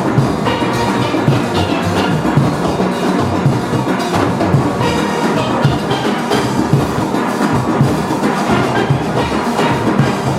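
Steelband playing: a steelpan orchestra with its drum and percussion section keeping a steady beat.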